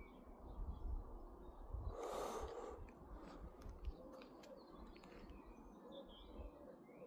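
Faint outdoor ambience: small birds chirping in short calls over a low wind rumble, with a brief breathy rush of noise about two seconds in and a few light clicks.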